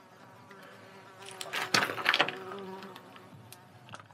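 A low insect buzz runs steadily, with a loud cluster of scuffs and clicks between about one and a half and two seconds in.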